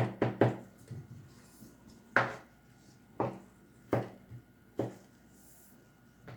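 Knife chopping garlic on a cutting board: several quick strikes at first, then single sharp chops, most about a second apart.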